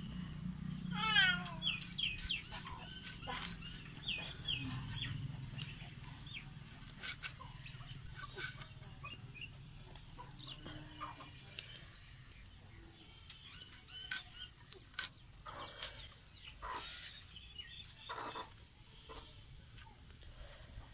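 Hen clucking, a run of short calls a second or two in, with scattered sharp clicks and taps.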